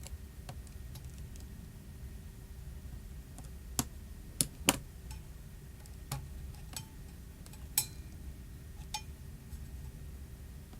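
Scattered light clicks and taps of small hand tools and parts against a phone under repair, about seven in all. The sharpest three come close together a little under halfway through.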